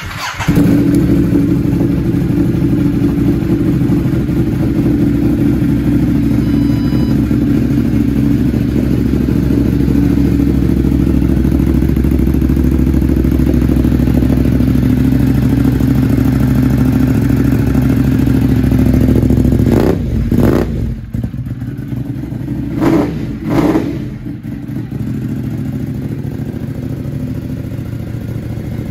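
Ducati Monster 821's 90-degree V-twin engine starting, then idling steadily. A few quick throttle blips come about two-thirds of the way through.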